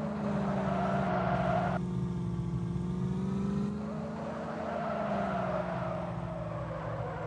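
Mahindra Thar's engine running, its revs rising and easing gently. A layer of higher hissing noise cuts off abruptly about two seconds in.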